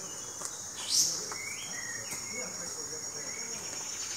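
Tropical rainforest ambience: a steady high-pitched insect chorus with scattered bird calls, and one loud rising call about a second in.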